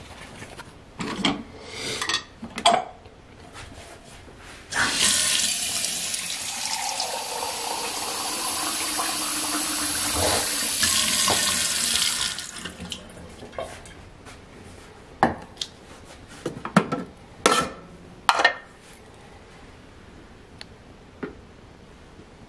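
Water running from a tap into a vessel for about seven seconds, getting slightly louder as it goes, then stopping. A few short knocks follow.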